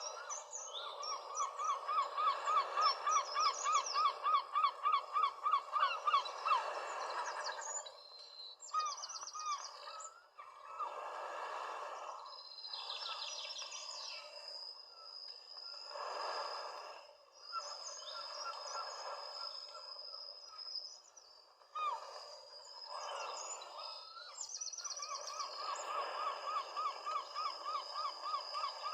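Birds calling: a fast run of repeated chirps, about five a second, in the first few seconds and again near the end, with a thin high whistling note through much of the second half over a soft hiss.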